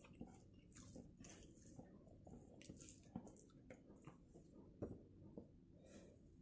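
Faint, close-up chewing of food, with irregular soft mouth smacks and clicks.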